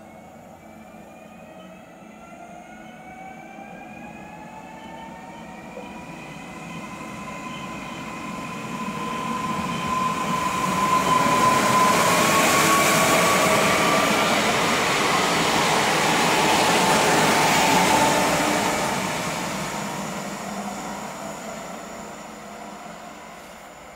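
Koleje Małopolskie EN78 electric multiple unit passing on the line. An electric whine rises slowly in pitch as it approaches. The running noise is loudest for several seconds as it goes by, then the whine drops in pitch and the sound fades as it pulls away.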